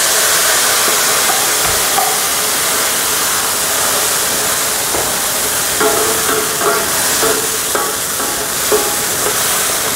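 Soy-and-brown-sugar sauce hitting a hot wok of fried pork and scallions over high heat and sizzling hard, a steady loud hiss as a wooden spatula stirs it through.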